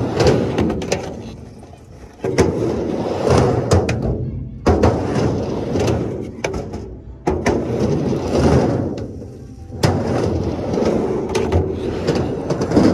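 Skateboard wheels rolling on a concrete bowl, the board carving back and forth in repeated swells of rumbling noise about every two and a half seconds, each starting sharply, sometimes with a clack, and fading away as the board climbs the wall.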